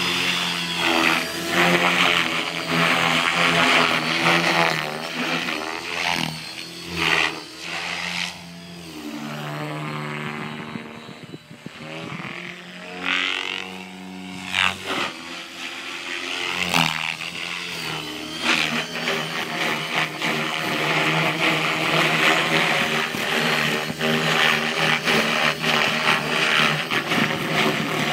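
Align T-Rex 600E Pro electric RC helicopter in flight: its rotor and motor give a steady pitched drone that keeps sliding up and down as it climbs, turns and passes. The drone fades for a few seconds near the middle as it flies off, then grows louder again.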